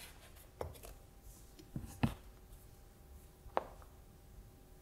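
Four short knocks and clicks of a circuit board and hand tools being handled on a cutting mat, the loudest about two seconds in.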